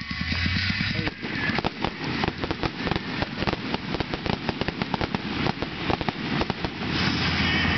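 Aerial fireworks crackling: dozens of rapid, irregular sharp pops from crackle-effect shells, starting about a second in and dying away near the end.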